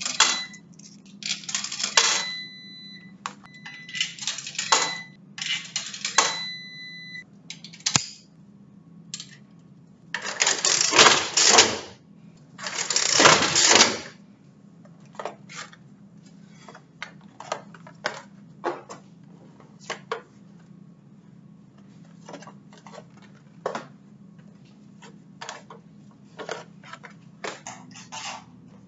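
Metallic clinking and clattering from handling coin-operated laundry machines, with a few short beeps in the first several seconds, two longer rattling bursts about ten and thirteen seconds in, and a steady low machine hum underneath.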